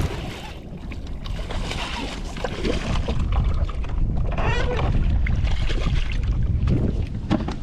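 Wind rumbling on the microphone over water sloshing and splashing beside a bass boat while a hooked bass is fought; it grows louder from about three seconds in.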